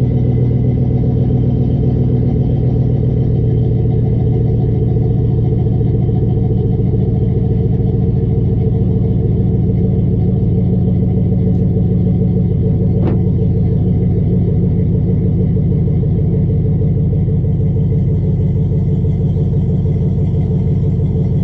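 Pickup truck's engine idling steadily and loud, with an even low firing pulse.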